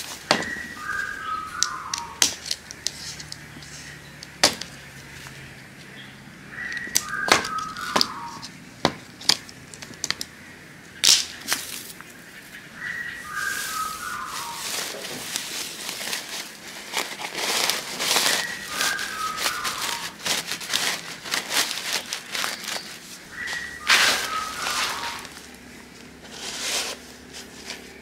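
A woven plastic sack rustling and crinkling while it is handled and fitted into a plastic crate, with sharp clicks and knocks from the crate. A short, falling run of whistled notes recurs about every six seconds.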